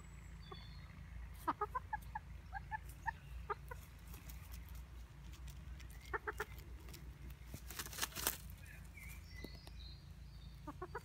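Booted bantam (Sabelpoot) chickens clucking in quick runs of short notes while dustbathing, with a short run about a second and a half in, another about six seconds in and one near the end. About eight seconds in there is a brief scratchy rustle of dust and feathers.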